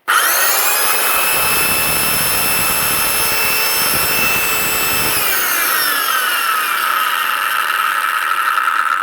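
Stern CS 185-C+ handheld circular saw switched on and running free at full speed with a high, steady whine, its broken bearing freshly replaced. At high speed it runs normally. About halfway through, some of its tones slide gradually lower.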